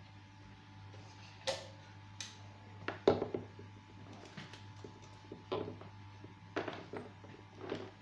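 Scattered clicks and knocks of small objects being handled, about six in all, the loudest a cluster about three seconds in, over a steady low hum.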